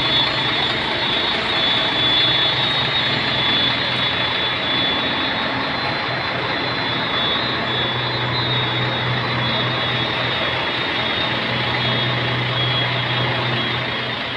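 Volvo heavy truck's diesel engine idling steadily: a low hum under a hiss, with a faint high whine.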